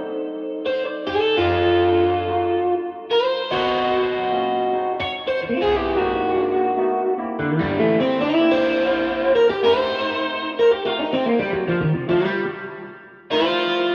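Guitar music with effects played back through Fyne Audio F500SP loudspeakers: ringing chords struck every second or two, a run of quicker notes in the middle, dying away near the end before a new chord comes in.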